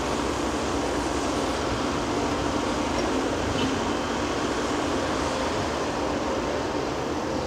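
Caterpillar 330F VA hydraulic excavator's diesel engine and hydraulics working steadily as it digs with the bucket and swings its boom, a constant mechanical drone.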